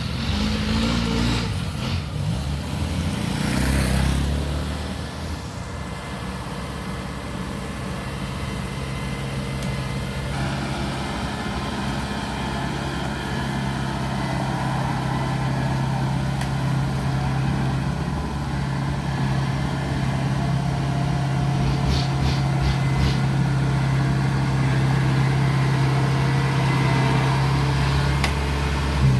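Kubota DC70 Plus combine harvester's diesel engine running steadily as the machine drives, growing gradually louder.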